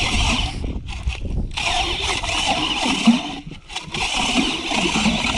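Powered ice auger drilling a hole through lake ice: a steady motor whine with cutting noise. It cuts out briefly twice, about a second in and again past the middle.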